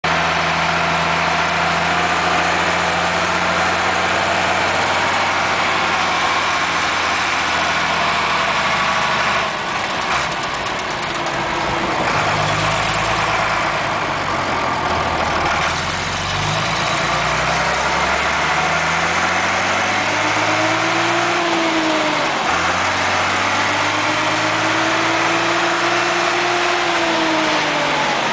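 Fendt 610 LS tractor's diesel engine running under way, heard from inside the cab. The engine note dips briefly about ten seconds in, the revs climb again, and a whine rises and falls twice near the end.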